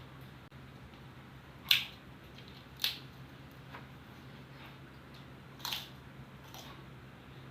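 A person eating from a plate: about five short, sharp clicks and crunches, the first two loudest, over a low steady hum.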